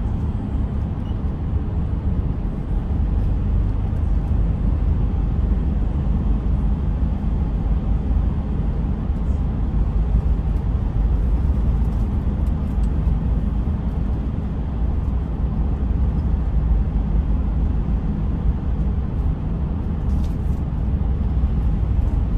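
Steady low road and engine rumble of a vehicle driving through a road tunnel at about 50–60 km/h, heard from inside the vehicle.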